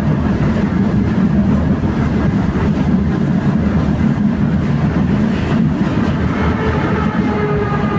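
Tram running along its rails, heard from inside the car: a steady loud rumble of wheels and running gear, with a faint whine coming in near the end.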